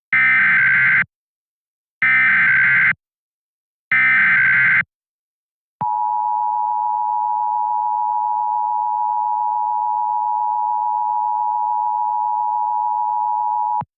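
Emergency Alert System SAME header: three one-second bursts of warbling digital data tones, then the EAS two-tone attention signal, a steady dual tone held for about eight seconds and cut off sharply. It marks the start of an emergency alert broadcast.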